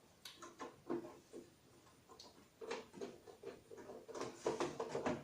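Irregular small clicks and taps of screws and a screwdriver being handled and started into a CRT television's plastic back cover, with a quick run of clicks about four seconds in.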